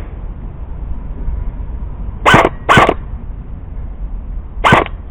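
A dog barking loudly three times: two barks in quick succession about two seconds in, then a single bark near the end.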